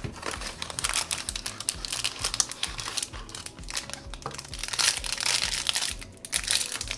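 Crinkling and rustling of a blind box's sealed inner packaging bag as it is lifted out of the small cardboard box and torn open by hand.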